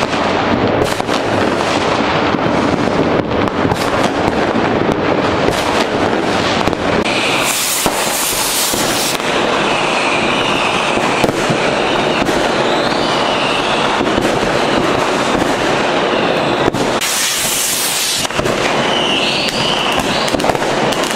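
Many fireworks going off at once: rockets and firecrackers in a dense, continuous crackle of bangs and pops. There are two spells of loud hissing, one about a third of the way in and one near the end, and several whistling glides in the second half.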